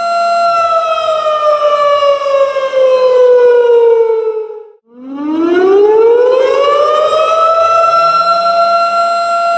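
Tornado warning siren sounding a steady wail that winds down in pitch over about four seconds, cuts out briefly about halfway, then winds back up from low to its full pitch and holds steady again.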